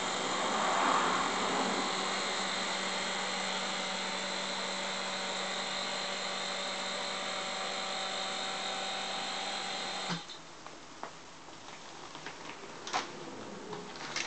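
External electric vacuum pump running steadily with a whine as it sucks the air out of a vacuum bag through a Lava V500 vacuum sealer. It cuts off abruptly about ten seconds in, leaving a few faint clicks and plastic bag handling.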